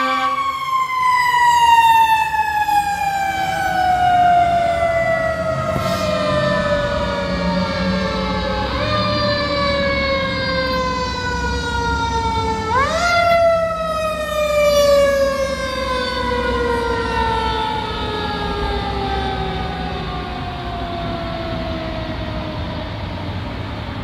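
Federal Signal Q mechanical siren on a fire apparatus coasting down slowly in pitch. It is wound back up briefly about nine seconds in and more sharply about thirteen seconds in, then coasts down again each time. A low rumble of heavy engines and traffic runs underneath.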